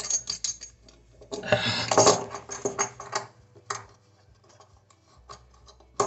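Small clicks and clinks of hands working a mounting nut onto a faucet's threaded shank under a sink, with a louder scraping clatter about one and a half to two seconds in.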